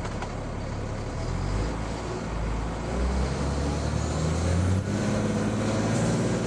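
A motor vehicle's engine running and picking up speed, its pitch stepping up about a second in and again about five seconds in.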